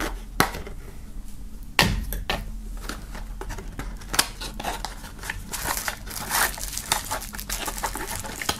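Scissors cutting the tape on a small cardboard box, with two sharp snips in the first two seconds, the second the loudest. Then cardboard flaps are handled and bubble wrap crinkles densely as a wrapped item is slid out of the box.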